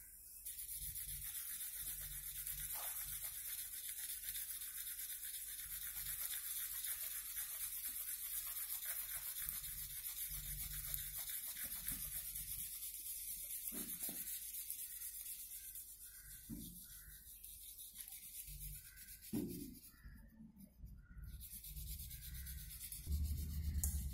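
Fast back-and-forth scribbling on drawing paper as a dark area is shaded in: a steady scratchy rubbing that stops about 19 seconds in. A few soft knocks follow, and there is a low bump near the end.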